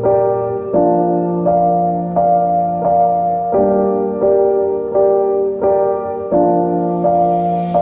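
Background instrumental music: a calm run of sustained notes, a new note about every three-quarters of a second.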